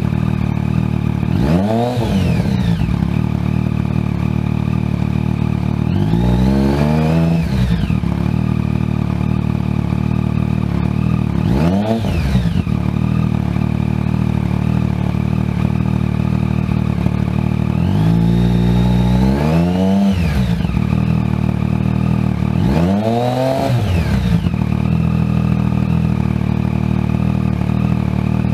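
Yamaha MT-09 inline three-cylinder engine breathing through an aftermarket exhaust, idling steadily and revved five times. Three of the revs are quick blips and two are held longer before the revs fall back to idle.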